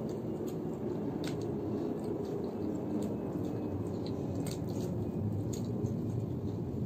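People chewing and biting french fries during a speed-eating race, with a few soft clicks, over a steady low background noise.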